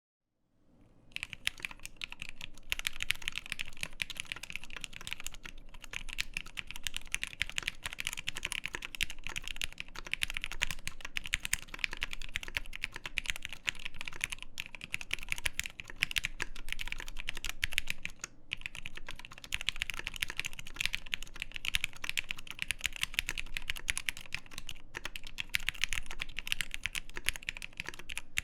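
Rapid, continuous typing on a Matrix 1.2 OG custom mechanical keyboard with Krytox-lubed Gateron Black Ink linear switches, an aluminum plate and GMK doubleshot keycaps. It starts about a second in, and the steady run of keystrokes breaks only for a few short pauses.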